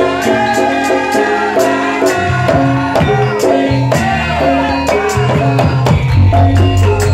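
Javanese gamelan-style ensemble music played live: pitched metal percussion instruments playing a stepped melody over drums, with a regular sharp high percussion stroke.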